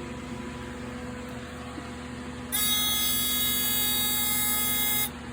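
Fast IRC-1 fire alarm panel's buzzer sounding after a reset: one steady, high-pitched tone starting about halfway through and cutting off abruptly after about two and a half seconds. A steady electrical hum runs underneath.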